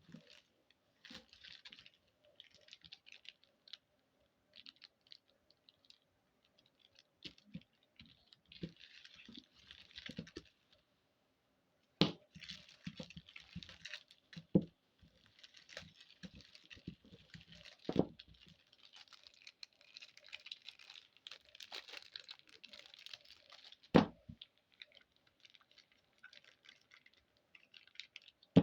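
Plastic candy wrappers crinkling and tearing as sweets are handled and unwrapped, in irregular spells, with a few sharp knocks of packets set down or tapped.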